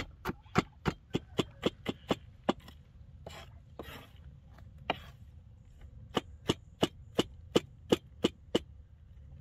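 Knife chopping walnuts on a wooden cutting board: rapid, even strikes about three to four a second. The chopping stops for about three seconds, with a few soft rustles, then resumes.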